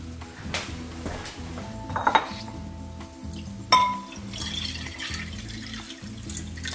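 A glass bowl set down on a granite countertop with a ringing clink, a sharper glass clink a couple of seconds later, then water poured from a glass measuring cup into the bowl for the last few seconds. Background music runs underneath.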